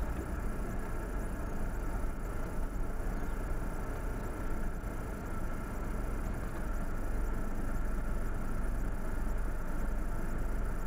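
Vehicle engines idling with a steady low rumble, growing a little louder about six and a half seconds in as a Land Rover Defender pulls up alongside.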